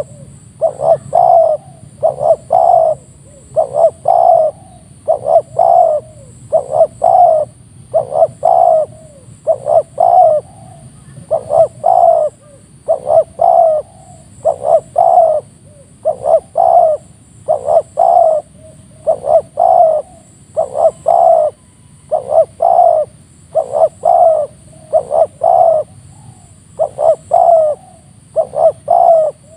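Spotted dove cooing: a short phrase of two or three quick notes, repeated about every one and a half seconds without a break.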